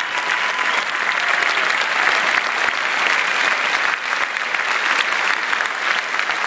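A large audience applauding steadily: many pairs of hands clapping in a dense, continuous patter.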